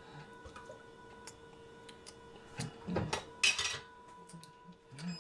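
Kitchen utensils and dishes clinking and knocking on a countertop: scattered light taps, then a louder clatter and a short scrape about three seconds in, over a faint steady hum.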